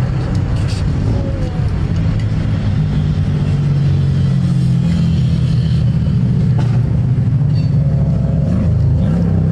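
Turbocharged Toyota 2JZ-GE inline-six idling steadily, heard from right over the open engine bay.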